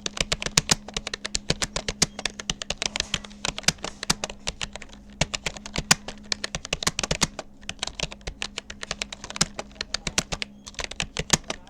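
Fast touch typing on a Rapoo computer keyboard: a rapid, uneven stream of key clicks, several a second, with a couple of short pauses, over a faint steady hum.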